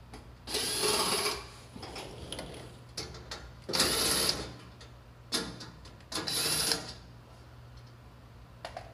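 Cordless drill with an 8 mm socket spinning out the screws of a pickup's underbody pan, whirring in four short bursts, the first two the longest.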